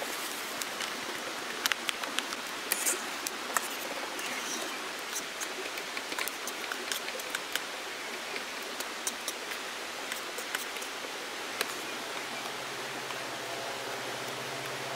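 Campfire crackling: sharp pops scattered over a steady hiss. A low steady hum joins about twelve seconds in.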